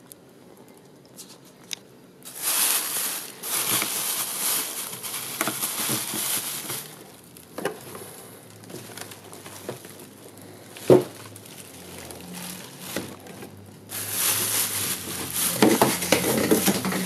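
Plastic wrapping crinkling as it is handled around the coffee maker, in two long stretches with quieter rustling between, and a single sharp knock about eleven seconds in.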